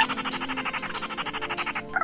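Recorded bird call from a lure track for trapping gỏ ghẻ and cuốc lùn: a rapid rattling trill of about fourteen even pulses a second, opening with a short upward note and lasting almost the whole two seconds, over steady low tones.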